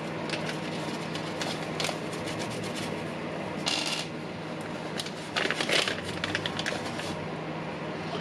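Handling of a cordless impact driver's plastic housing during reassembly: scattered small clicks and knocks, a brief scrape just before the middle and a cluster of louder scraping rattles a little past the middle.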